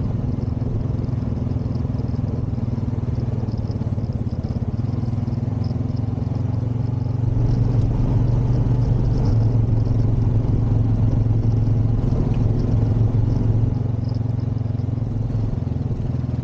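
Honda Rancher ATV's single-cylinder four-stroke engine running steadily while under way, getting louder for several seconds around the middle, then easing back.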